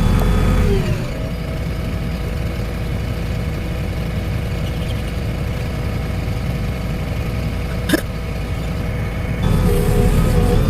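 Heavy excavator's diesel engine drops from working revs to a steady idle about a second in, then revs back up near the end. A single sharp knock comes about eight seconds in.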